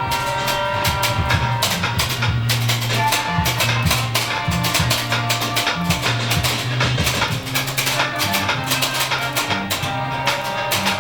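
Music with guitar, a steady bass line and quick, busy percussion.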